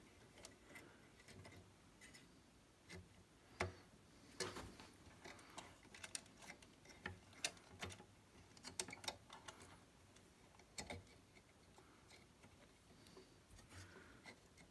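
Faint, irregular small clicks and taps of wire-harness pin connectors being pushed by hand onto the pins of a Heathkit AA-29 output amplifier board, against a quiet room.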